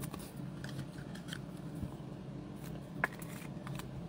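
Soft scraping and light clicks of a sleeved trading card being slid into a rigid clear plastic toploader, with one sharper click about three seconds in. A low steady hum lies underneath.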